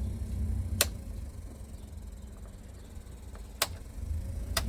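The blower fan of a 1995 Ford Econoline E350 runs with a low hum. The hum dips in the middle and rises again near the end. Three sharp ticks are spread through it, and the owner suspects leaves or other debris inside the blower.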